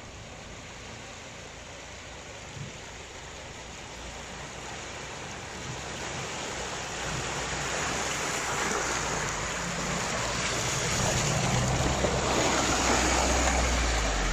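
Volvo XC70 AWD wading through deep muddy water: a steady churning and splashing of water and mud that grows louder as the car comes closer, with the engine's low running note coming in over the last few seconds as the wheels throw up mud.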